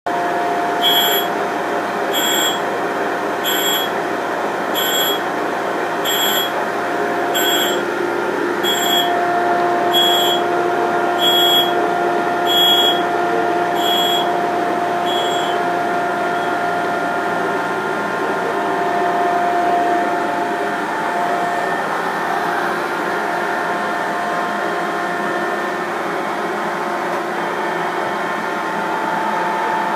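Hybco tool and cutter grinder running while sharpening a countersink: a steady motor hum with extraction hiss. For the first half, a short high chirp repeats about once every second and a bit, then stops.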